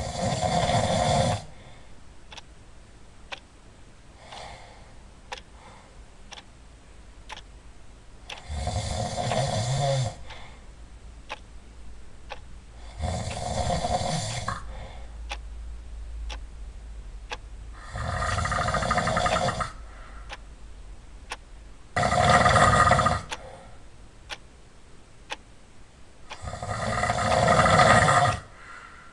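Loud snoring: six long snores of one to two seconds each, coming every four to five seconds. Faint ticks about once a second run between them.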